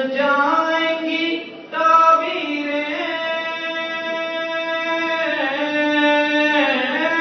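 A solo voice reciting a naat, a devotional poem in praise of the Prophet, sung in long held notes that bend slowly in pitch, with a short pause about a second and a half in.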